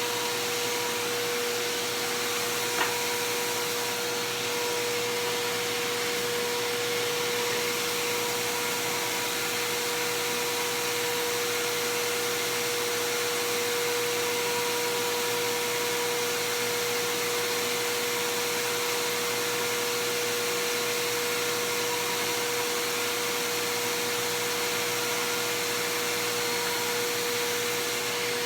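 Bissell PowerForce Helix Turbo upright vacuum running steadily, its motor giving a constant whine over the rush of air, with one brief click about three seconds in.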